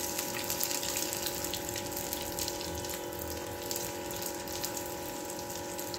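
Spring rolls deep-frying in hot oil: a steady sizzle with fine crackling, over a faint steady hum.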